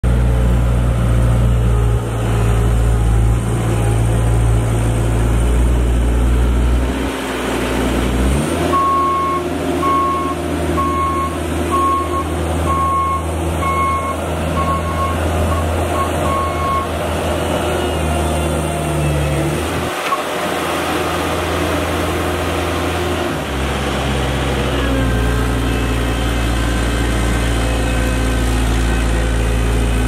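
2022 Cat 216B3 skid steer's diesel engine running steadily as the machine is driven, its engine note shifting about a third of the way in and again past the three-quarter mark. For about eight seconds in the middle its reversing alarm beeps steadily, roughly one beep a second or a little faster.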